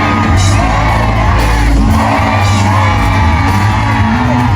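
Loud live church band music led by keyboard, with a steady bass line, and a congregation shouting and cheering over it.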